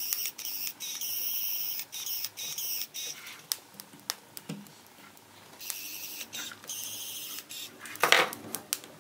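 3D printing pen's filament-feed motor whining at a high pitch while it extrudes plastic, in two runs of about three and two seconds with light clicks between them. A louder knock comes about eight seconds in.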